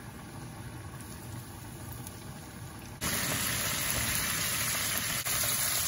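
Hot oil bubbling as flour-coated pork chop pieces deep-fry in a small pot. About three seconds in it jumps to a louder, steady hissing sizzle.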